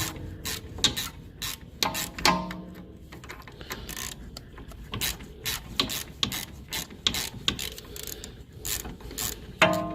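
Ratchet wrench clicking in short back-and-forth strokes, turning a T30 Torx bit to work loose a stabilizer link bolt that is hard to get off. There are ringing metal clanks about two seconds in and near the end.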